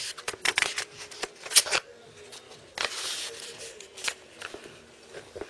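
Sheets of printed exam paper rustling and crackling as pages are handled and turned, in a run of short scrapes over the first couple of seconds, with another rustle about three seconds in.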